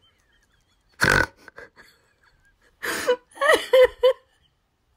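A woman laughing hard and snorting with laughter. There is a loud snort about a second in, then a quick run of short, high-pitched laughs about three seconds in.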